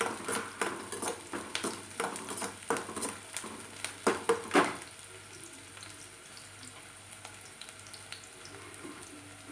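Metal slotted spatula scraping and tapping against a kadai as Maggi noodles with onion are stirred, about three strokes a second, loudest near the end of the stirring. The stirring stops just before halfway, leaving a soft, steady sizzle of the noodles frying.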